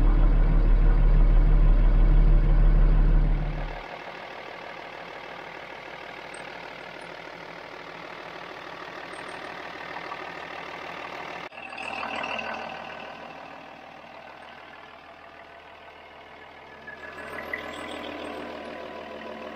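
Mercedes-Benz OM366A inline-six diesel engine of a Unimog U1300L idling steadily, with good oil pressure on its newly replaced oil filter housing. Loud and deep for the first four seconds, then quieter and thinner, heard up close under the truck.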